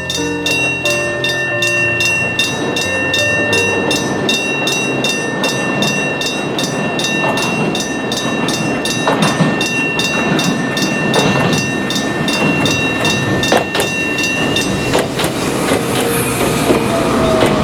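Electric gong bell of a Japanese level crossing ringing in rapid, evenly spaced strokes while a train rolls through with clattering wheels. The bell stops about 15 seconds in, and the train noise carries on with a falling whine near the end.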